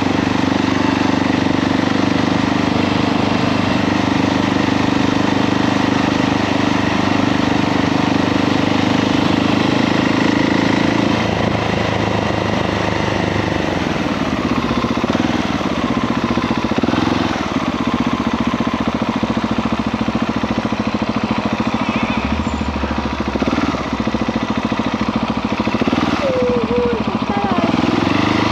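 KTM 690 SMC R motorcycle's single-cylinder engine running while riding. It holds a steady note for the first ten seconds or so, then the note drops away and keeps changing.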